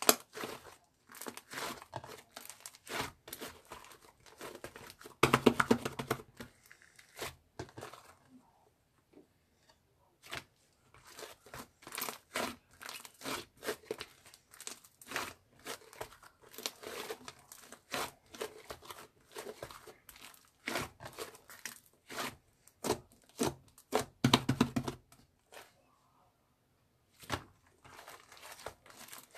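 Rapid crinkling and tearing handling sounds, made of many short crackles, with two louder, longer stretches about five and twenty-four seconds in.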